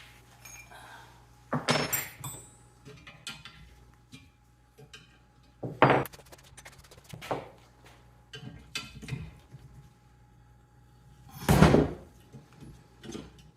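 Small metal engine parts and tools being handled and set down on a work surface: a few scattered clinks and knocks, the loudest about six seconds in and near the end.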